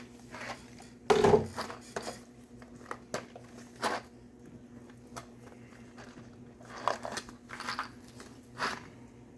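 Small tools and hardware being handled and rummaged through, giving scattered knocks and clatters. The loudest comes about a second in, with a few lighter ones later, over a steady low hum.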